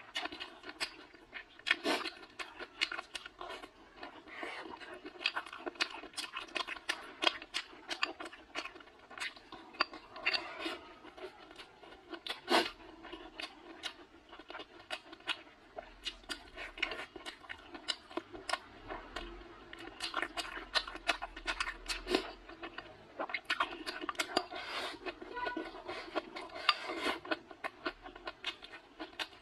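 Close-up eating sounds of someone chewing spicy chicken wings with rice: many small, irregular wet clicks and smacks of the mouth, with now and then wooden chopsticks knocking against the bowl.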